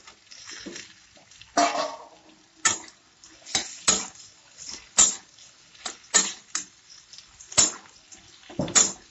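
Steel spatula knocking and scraping against a metal wok as fried green banana pieces and potatoes are stirred together: about ten irregular clanks.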